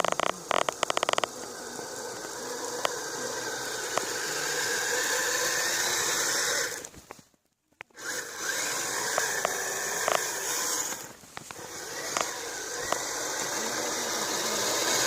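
Kyosho Blizzard RC snowcat's electric drive and tracks running in spurts as the throttle is worked. It cuts out completely for about a second some seven seconds in, then runs again, easing off briefly a few seconds later.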